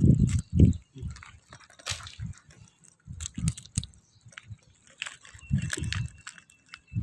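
Green mussel shells clicking and crunching in irregular snaps as they are pulled by hand from a mussel bed, with scattered dull thumps.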